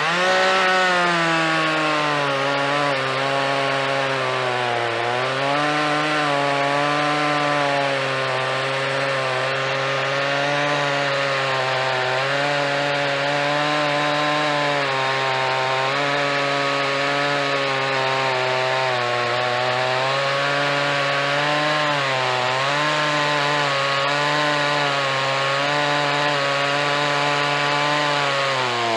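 Scheppach 56cc two-stroke petrol chainsaw at full throttle, cutting through a big hardwood log. Its engine runs steadily under load, and its pitch sags briefly a few times as the chain bites deeper, then recovers.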